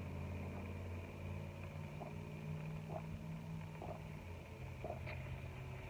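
Low steady hum of a parked car's engine idling, heard inside the cabin, with a few faint soft sips through a straw from a drinking cup.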